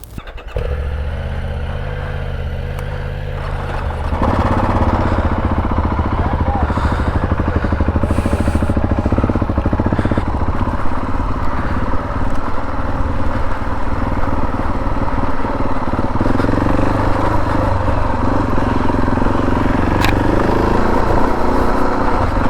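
Husqvarna 701 Enduro's single-cylinder engine idling steadily, then running louder from about four seconds in as the bike rides off.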